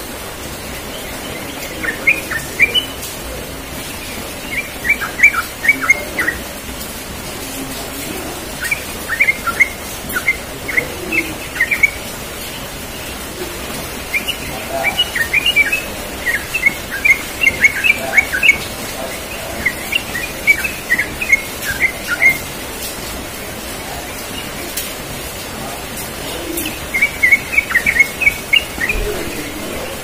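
Caged yellow-vented bulbul singing its fast rolling song: several runs of quick, sharp notes lasting a second or few each, with pauses of a few seconds between them, over a steady background hiss.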